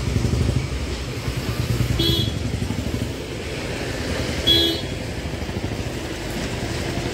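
Street traffic: a steady engine rumble with two short vehicle horn toots, one about two seconds in and another about four and a half seconds in.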